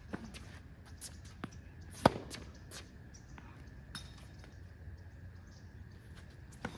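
Tennis rally: a sharp racket-on-ball hit close by about two seconds in, the loudest sound, with fainter hits and ball bounces from across the court.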